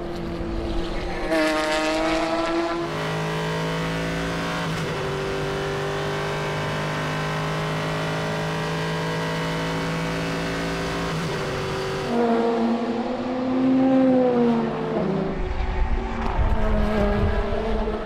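Endurance race car engines at speed: a car passing with its engine note falling away, then a long stretch of steady, high engine note at constant revs as heard on board a prototype. About twelve seconds in, the engine revs rise and fall again as further cars pass.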